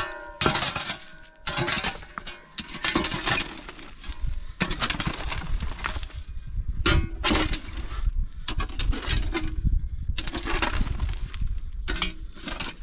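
Repeated bursts of rough scraping and clattering, each lasting about half a second to a second.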